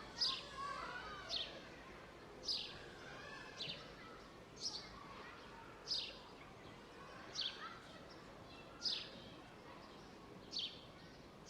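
A songbird repeating a short, sharp, downward-sliding chirp about every second or so, sometimes twice in quick succession, over steady outdoor background noise.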